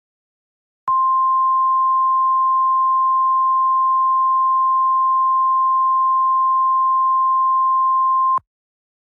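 Emergency alert attention tone of the NOAA Weather Radio kind: a single steady high pure tone, held unbroken for about seven and a half seconds, starting about a second in and cutting off suddenly near the end. It is the alarm that signals an emergency warning message is about to be broadcast.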